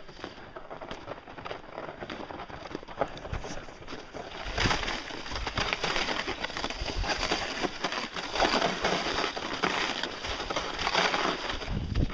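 Crunching footsteps on hard, compacted snow in Kahtoola MICROspikes, with the scrape of a pulk sled sliding over the snow behind. It gets louder about four and a half seconds in.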